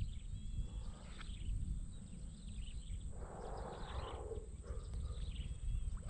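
Rural outdoor ambience: a steady low rumble with a few faint bird chirps, and a brief rustling noise about three seconds in.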